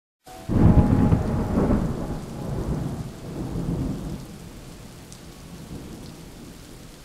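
A loud, deep rumble sets in about half a second in and fades away over the next few seconds, over a steady hiss.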